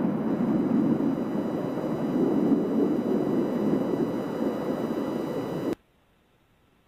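Steady rumble of a Falcon 9 rocket's engines heard from a distance. It stops abruptly near the end.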